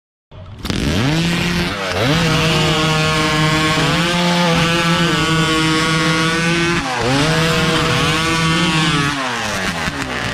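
Chainsaw engine revving up to a high, steady pitch. It dips briefly about two seconds in and again about seven seconds in, then winds down and cuts off near the end.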